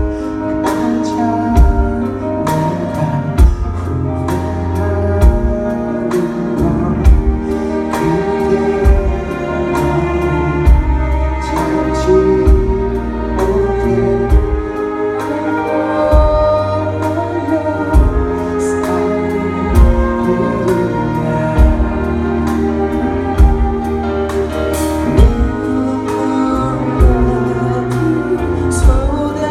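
Live band music: drum kit keeping a steady beat over a heavy bass line, with sustained melodic instrument lines on top.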